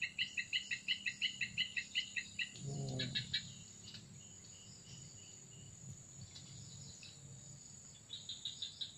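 Swamp wildlife: a steady high insect drone, with a rapid series of chirps, about four or five a second, that stops about two and a half seconds in and comes back briefly near the end. A short low sound about three seconds in.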